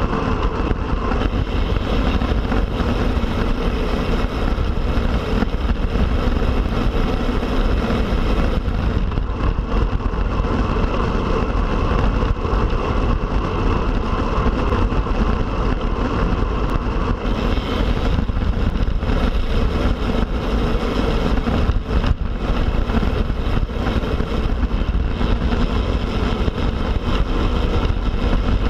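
Steady rush of wind over the microphone, with road and tyre noise from a road bike ridden at speed.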